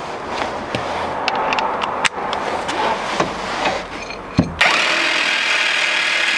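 Corded electric impact wrench spinning off an already-loosened sway bar end-link nut. A rattly, clicking run gives way about two-thirds through to a sudden steady high whine as the wrench spins freely.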